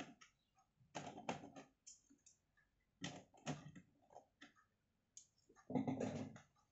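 Faint light clicks and taps in small groups a couple of seconds apart, with a denser cluster near the end.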